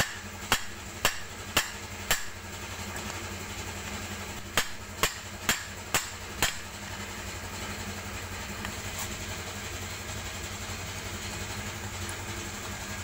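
Sharp knocks of a wooden block struck against the pinion end of a car's rack-and-pinion steering rack to drive the pinion out: five blows about two a second, a short pause, then five more. A steady low hum runs underneath.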